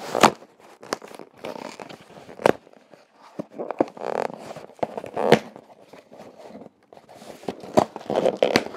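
Cardboard shipping box being forced open by hand: irregular tearing and scraping of the cardboard and tape, broken by several sharp knocks.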